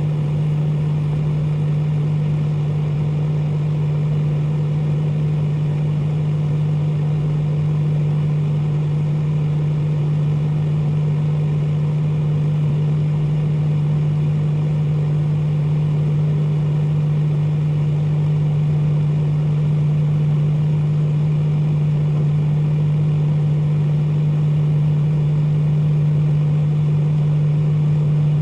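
Microwave oven running with a steady low hum that does not change.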